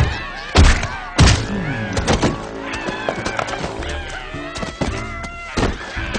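Cartoon background music, with three heavy thuds in the first second and a half as sound effects.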